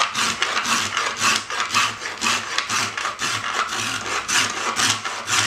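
A hand tool worked back and forth over wood in a violin maker's workshop, making a steady run of rasping strokes, about two or three a second.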